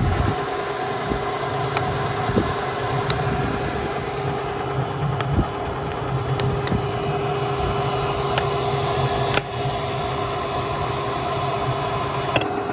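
Stirling engine running steadily together with its electric radiator cooling fan, a continuous mechanical hum with a held tone and a few light ticks.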